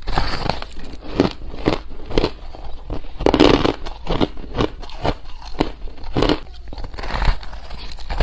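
Crushed ice packed into a slab being bitten and chewed: a run of sharp, crackling crunches, loudest about three and a half seconds in.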